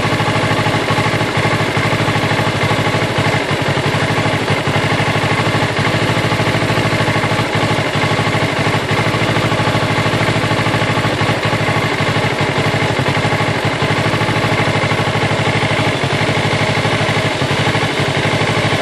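2014 Kawasaki Ninja 650's parallel-twin engine idling unevenly: the idle won't stay constant, dipping a couple hundred rpm and coming back up, a hunting idle that the owner can't explain.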